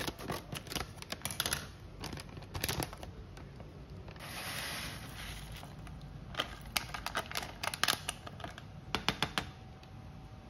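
A plastic pouch of risotto rice crinkling and crackling as it is handled and opened, with a hiss midway as its contents are poured into a saucepan of water, then more sharp crinkly clicks.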